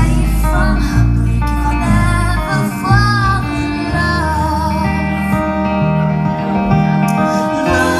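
Live band music: a strummed acoustic guitar and a woman singing a slow melody with vibrato, over sustained low notes.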